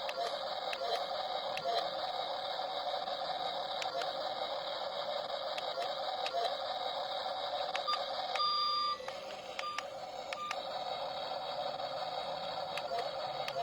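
Remote-control toy backhoe loader running: a steady whine with scattered clicks. The pitch changes for about two seconds starting about eight seconds in.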